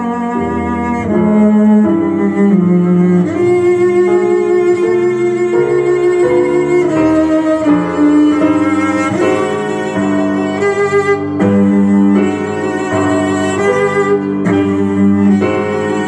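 Slow classical duet for cello and bassoon playing from a vinyl record through hi-fi loudspeakers in a room, two melodic lines moving together with the notes changing about every second.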